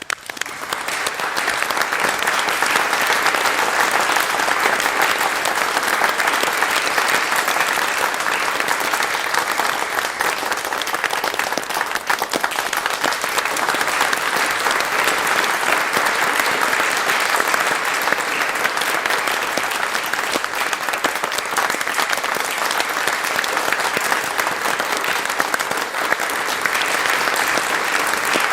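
A large crowd applauding: dense, steady clapping from many hands, swelling up within the first second and then holding even.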